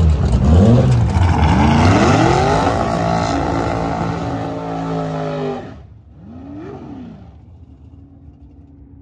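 Four-cylinder drag car revving twice, then launching at full throttle: the engine pitch climbs and holds high until it cuts off suddenly about six seconds in. A fainter rev rises and falls after it, then a low steady idle.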